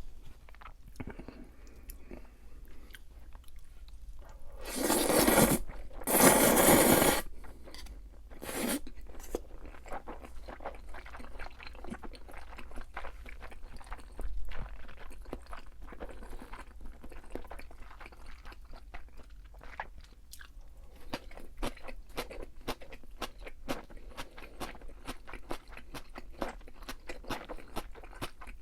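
Close-miked eating: crunchy chewing of crisp fried food, full of dense little crackles and clicks. Two loud noisy bursts come about five and six seconds in, and a shorter one near nine seconds.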